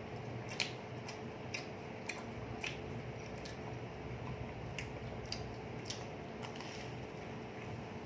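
Eating sounds: scattered soft clicks and smacks of chewing and biting into a chicken sandwich, a few times a second at irregular intervals. A faint steady hum runs underneath.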